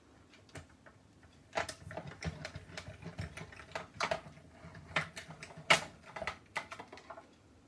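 Stampin' Up hand-cranked die-cutting machine being turned, rolling a stack of clear cutting plates with a metal die and gold foil through its rollers. It makes a run of irregular clicks and knocks, starting about a second and a half in and lasting about five seconds.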